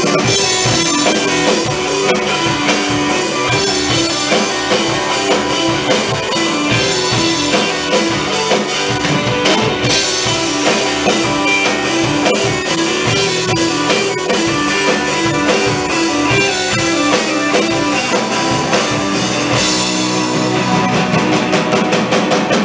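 Live rock band playing an instrumental passage: electric guitars over a drum kit, built on a repeating riff.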